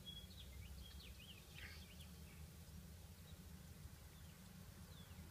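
Near silence: a steady low hum, with a few faint, short bird chirps, most of them in the first two seconds.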